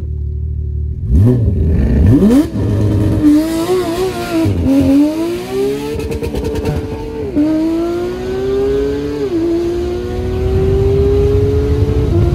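Sports-car engines accelerating hard in a street race. The engine pitch starts climbing about a second in, then rises and drops sharply about four times as the cars shift up through the gears.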